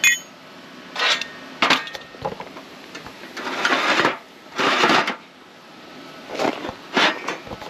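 Steel angle iron being handled: a sharp metallic clink with a brief ring at the start, then scattered short scuffs and knocks.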